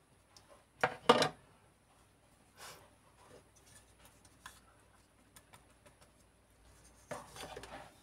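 Handling of a makeup compact and sponge: two sharp clacks about a second in, then faint taps and a soft rustle near the end.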